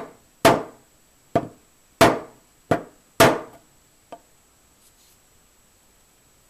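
Hammer tapping a pin into an AR-15 lower receiver: about six sharp metallic knocks at uneven intervals over three seconds, each ringing briefly, then a lighter tap about four seconds in.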